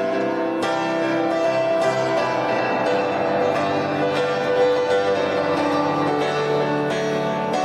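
Instrumental music with no singing: a slow melodic line of separately struck notes over held chords.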